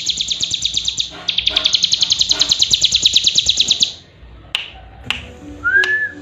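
A cigun songbird singing a fast, even, high trill of sharp notes. The trill breaks briefly about a second in and stops about four seconds in, followed by a few clicks and a short whistle that rises and falls near the end.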